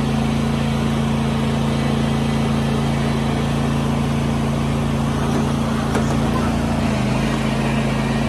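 Riding lawn mower's engine running steadily, a constant hum, with a slight change in tone about seven seconds in.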